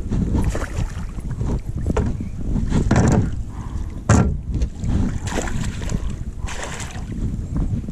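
A pike splashing at the surface as it is netted at the side of a small boat, in several sharp splashes about three, four, five and six and a half seconds in, over a steady low rumble of wind on the microphone.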